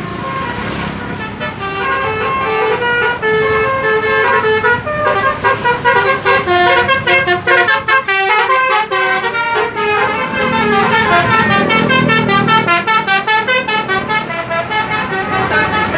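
Bus telolet horn, a multi-tone musical horn, playing a tune of several notes that jump in pitch every fraction of a second. From about five seconds in, the notes come in rapid stuttering pulses.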